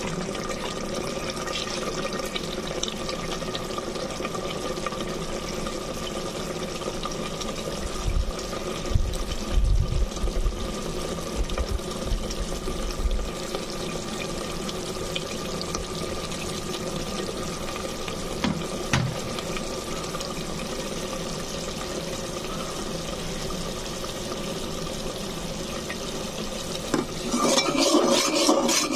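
Prawn and taro curry bubbling in an aluminium pot as the masala is cooked down with a little added water, over a steady hum. A few low bumps come partway through, and near the end a steel spoon stirs and scrapes against the pot.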